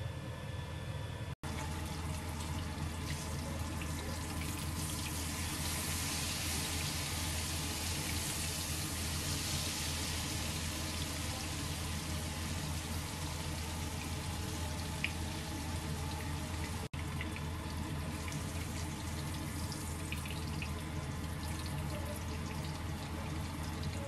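Water running steadily from a kitchen tap into a sink, a rushing that grows brighter for several seconds in the middle, over a low steady hum. It cuts out for an instant twice.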